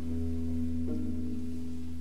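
Live improvised instrumental music from a small ensemble: sustained held notes over a steady low drone, with the upper notes changing about a second in.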